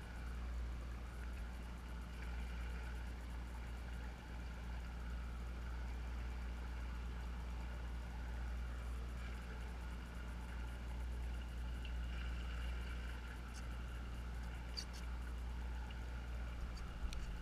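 Steady low hum of a sportfishing boat's machinery running on deck, even and unchanging throughout.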